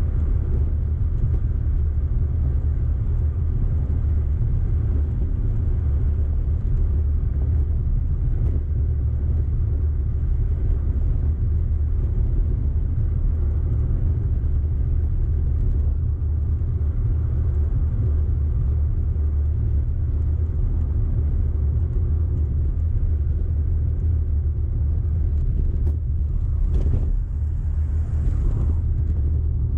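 Audi car being driven: a steady low rumble of engine and road noise, with a brief hiss near the end.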